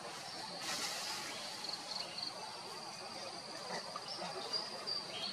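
Outdoor forest ambience dominated by a steady high-pitched insect drone, with a few short pulses in it about two seconds in. A brief rustling burst of noise comes just under a second in.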